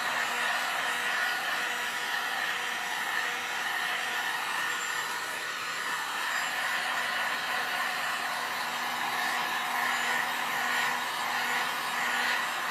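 Heat gun blowing hot air with a steady rushing whir and a constant low motor hum. It is drying fresh paint on a wooden shelf tier.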